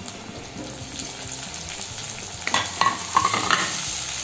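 Chopped tomatoes and shallots frying in hot oil in a metal kadai, with a steady sizzle. About two and a half seconds in, a wooden spatula starts stirring, scraping and knocking against the pan in a quick run of strokes.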